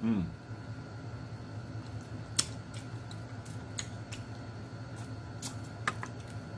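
Scattered sharp clicks and cracks of snow crab shell being picked at and pulled apart, the loudest about two and a half seconds in, over a steady low hum.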